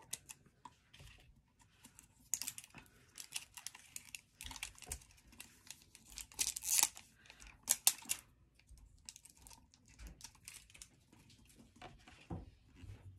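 Plastic shrink-wrap on a bottle of countertop cleaner being picked at and peeled off, irregular crinkling and crackling with some tearing, loudest about halfway through.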